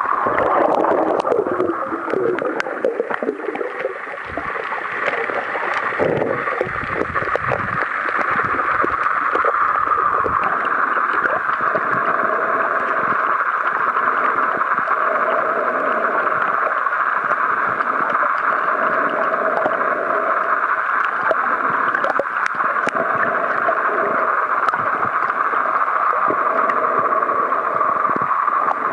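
Underwater sound picked up by a waterproof compact camera held below the surface: a steady, muffled rushing with gurgling, rougher in the first ten seconds. In the second half a faint hum comes and goes.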